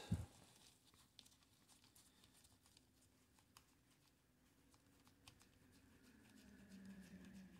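Near silence with faint, scattered light clicks from the freshly oiled number wheels of a vintage automatic numbering stamp being turned by gloved fingers.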